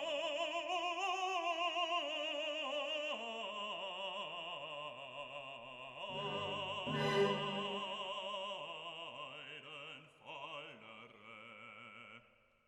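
Slow classical background music: long held notes with a strong wavering vibrato, in an opera-like style, growing quieter and dying away near the end.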